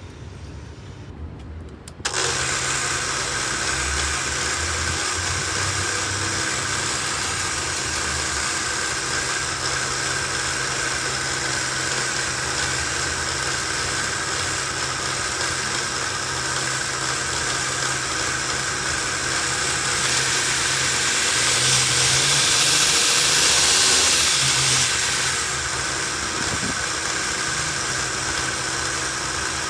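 DIY belt grinder driven by an angle grinder, switched on about two seconds in and running steadily with a whine and hiss. For a few seconds past the middle the hiss grows louder and brighter.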